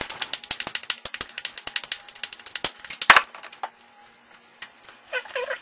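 Rapid, irregular clicking and tapping as fingers crumble a thick brown-sugar streusel topping over a metal muffin tin, with the sharpest tap about three seconds in. A brief wavering whine comes near the end.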